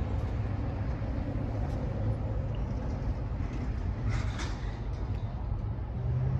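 Low, steady rumble and hum of an approaching freight train's diesel locomotives, still far off, growing slightly stronger near the end. A brief higher-pitched rustle comes about four seconds in.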